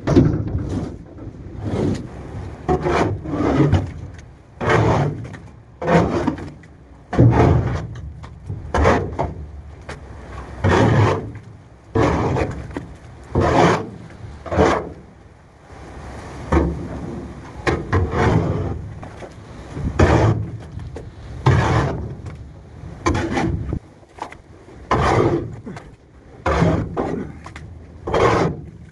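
Wet cow manure being scraped and shovelled off a livestock trailer's floor with long-handled hand tools: repeated scraping strokes, about one a second, with a short pause about halfway through.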